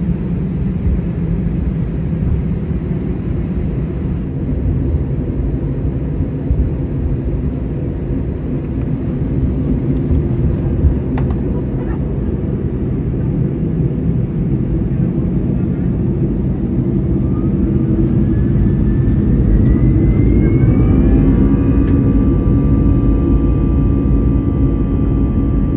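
Airbus A320 twin turbofan engines heard from the cabin: a steady taxi rumble, then from about 17 seconds in a rising whine as the engines spool up, settling into a steady whine near the end. The engines are being stabilised before takeoff thrust is set, and one spools a little later than the other.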